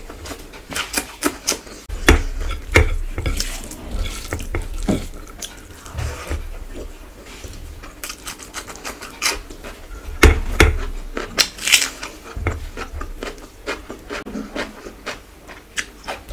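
Close-up eating sounds: wet chewing and smacking with many irregular sharp clicks, along with fingers mixing rice and curry on a plate.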